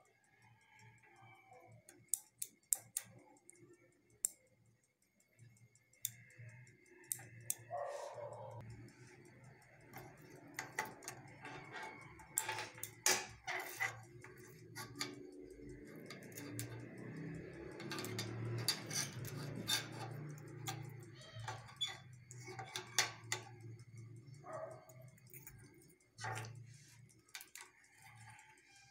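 Small metal and plastic electrical switch parts clicking and knocking as they are handled and set down on a hard surface. Irregular clicks throughout, with a low steady hum underneath through the middle stretch.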